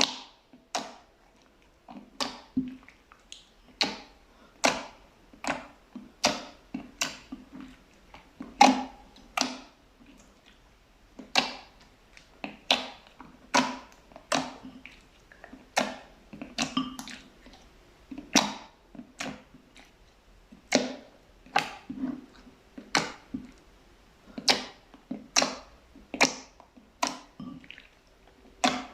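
Fluffy slime being pressed and worked by hand, giving a steady run of sharp pops and clicks, about one or two a second.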